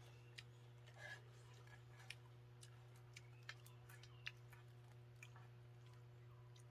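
Near silence: a faint steady hum with about eight faint, short clicks scattered irregularly through it.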